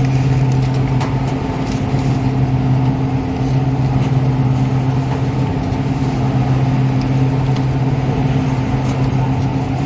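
Pouch squeezer separator machine running steadily, a loud continuous mechanical hum with a low steady tone and a noisy rush over it.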